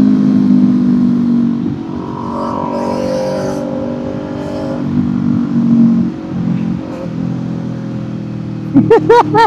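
Kawasaki Z400's parallel-twin engine running under way as the rider works the throttle, its note rising and easing. Near the end come a few quick rev blips.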